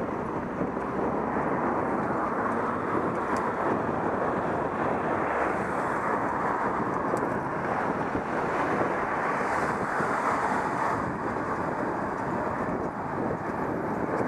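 Steady rush of wind over the microphone of a camera on a moving vehicle, with the vehicle's running and road noise underneath. It holds level throughout, with no distinct events.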